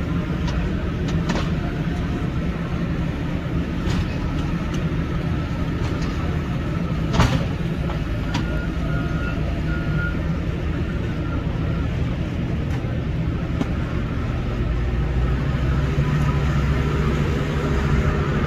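Heavy machinery engines running steadily, with scattered knocks and one sharp knock about seven seconds in; the engine noise grows louder near the end.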